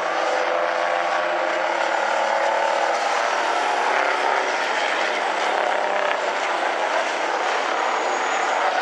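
Several racing big-rig semi tractors' diesel engines running hard together in a steady, overlapping drone of engine notes.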